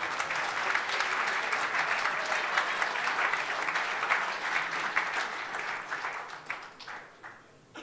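Seated audience applauding steadily, the clapping thinning out near the end into a few last scattered claps.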